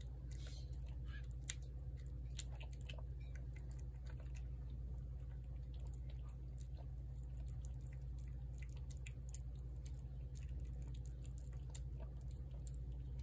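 A cat eating wet cat food from a plate: quick, irregular wet clicks and smacks of chewing and lapping, with one sharper click about one and a half seconds in, over a steady low hum.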